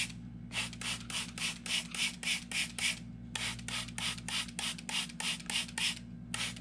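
Trigger spray bottle spritzing water onto the soil in cardboard seed pots, squeezed rapidly at about five sprays a second in runs broken by short pauses.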